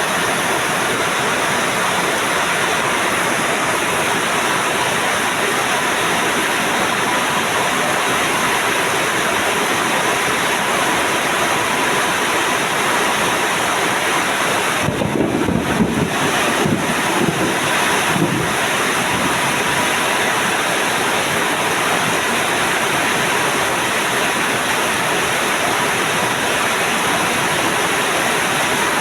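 Heavy rain pouring steadily, a dense even hiss. About halfway through, a low, uneven rumble rises over it for a few seconds, then fades back into the rain.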